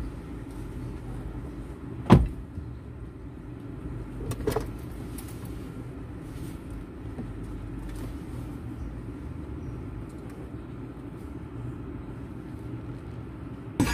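Steady low hum inside a pickup truck's cabin, with a sharp knock about two seconds in and a softer knock about two seconds later.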